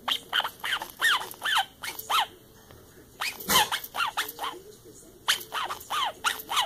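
Squeaker inside a plush toy squeaking as an Alaskan malamute chews it: quick runs of short squeaks, each falling in pitch, with brief pauses between runs and the loudest about three and a half seconds in.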